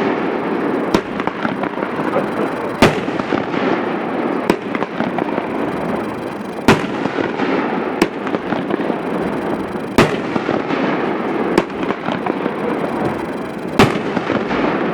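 Grim Weaver, an 8-shot consumer firework cake, firing its big shots one after another. Each shot is a sharp boom, spaced every one to two seconds, with steady noise between them.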